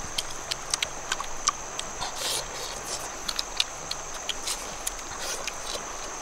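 Scattered small clicks and smacks of people eating by hand, picking at small shells and sucking the meat from their fingers. Underneath runs a steady rush of river water and a constant high tone.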